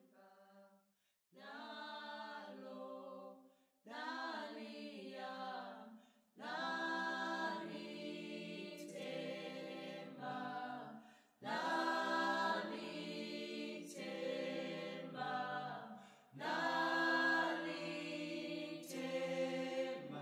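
A cappella singing: several voices in harmony, sung in phrases of a few seconds separated by short breaks, growing louder after the first few seconds.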